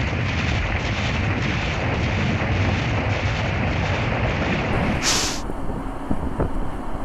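Vehicle driving noise: a steady rumble with wind noise, changing about five seconds in to a lighter rumble with scattered knocks.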